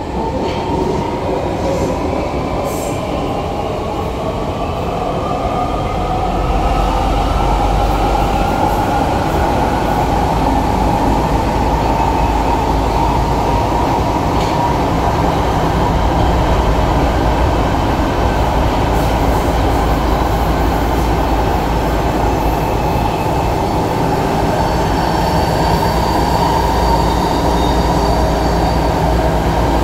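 DT3 subway train heard from inside the passenger car. A traction-motor whine rises in pitch and the overall sound grows louder over the first several seconds as the train picks up speed. It then runs on at speed with a steady rumble of wheels on rail.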